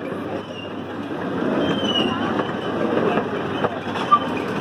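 Small park train running, heard from one of its open passenger cars: a steady rumble and rattle of the cars on the track, with a sharp click about four seconds in.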